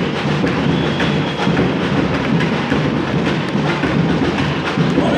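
Music with drums and percussion, a dense steady beat.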